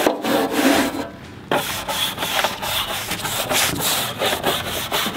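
Stiff-bristled scrub brush on a long handle scrubbing wet metal plates in quick back-and-forth strokes, with a brief pause about a second in.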